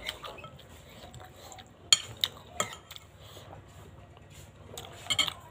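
Metal spoon and fork clinking against a ceramic soup bowl while eating: three sharp clinks about two seconds in and a couple more near the end.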